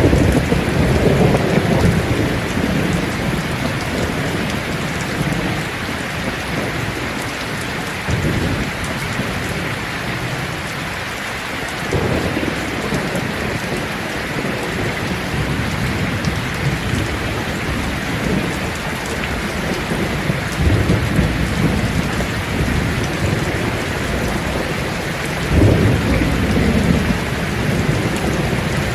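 Steady rain falling on leaves, an even hiss, with low rumbles of thunder swelling up several times, the strongest near the end.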